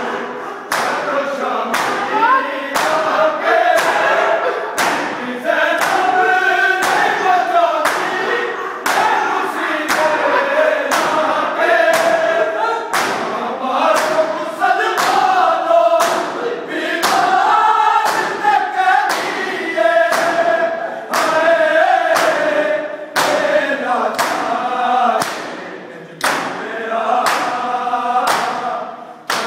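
A group of men chant a noha in unison while many hands strike bare chests in time (matam). The slaps land together at a steady beat of a little over one a second under the singing.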